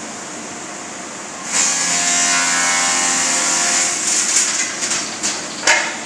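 Power saw cutting through a block of wood held at an angle in a jig: the cut starts about a second and a half in, loud over the saw's steady running noise, then turns uneven and scraping, with a sharp burst near the end.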